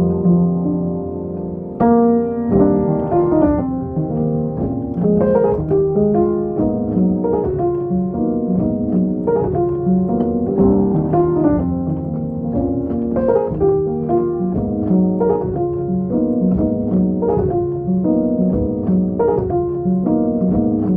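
Piano or keyboard music: chords and a moving melody line played at a steady pace.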